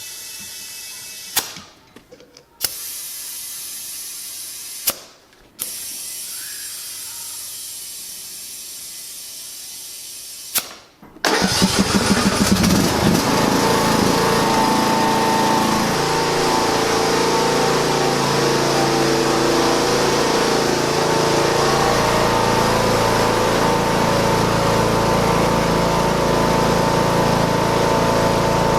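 A faint steady hum broken by several abrupt cuts. Then, about eleven seconds in, a John Deere lawn mower's small engine starts with a brief uneven catch and settles into steady running.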